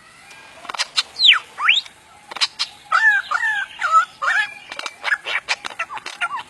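A talking bird vocalizing: two whistled glides, one falling and one rising, then a run of warbled notes that bend in pitch, mixed with many sharp clicks.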